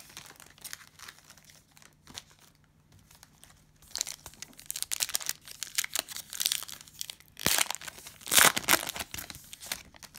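Cellophane wrapper of a basketball card cello pack being torn open and crinkled by hand: faint crackles at first, then louder, busier crinkling from about four seconds in.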